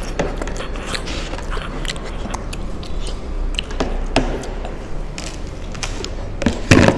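Eating straight off plastic plates without hands: chewing, with irregular sharp clicks and scrapes of the plates knocking and shifting on the tabletop as faces push into them. A louder noise comes near the end.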